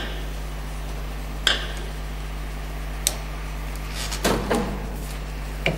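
A few sharp metallic clicks of an 8 mm Allen key against the steel clutch hub as the clutch screw is loosened, over a steady low machine hum.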